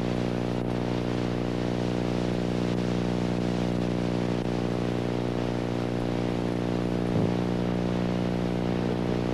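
A steady low drone with a buzzy stack of overtones, unchanging in pitch, with a brief wobble about seven seconds in.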